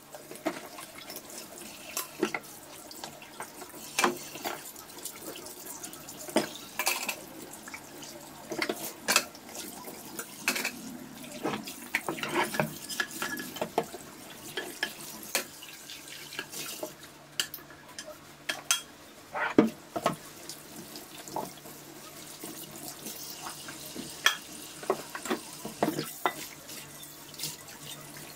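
Pots and pans being washed by hand in a kitchen sink: a tap runs steadily while metal pots, a glass lid and a frying pan clatter and knock against the sink and each other many times.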